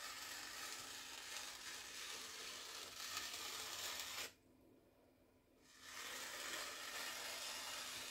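Freshly sharpened Victorinox Chinese cleaver slicing down through a sheet of glossy magazine paper in two long, smooth cuts, about four seconds and then about three, with a short pause between. This is a paper test of the edge, and the cleaver cuts cleanly through the paper, the sign of a very sharp edge.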